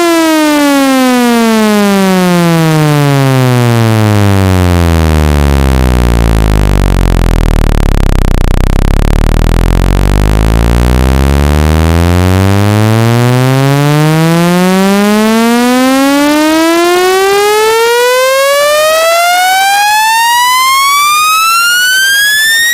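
Speaker-cleaning test tone: a loud, buzzy synthesized tone with many overtones. It glides down from a mid pitch to a deep bass hum about seven seconds in, stays low for a few seconds, then sweeps steadily back up to a high pitch.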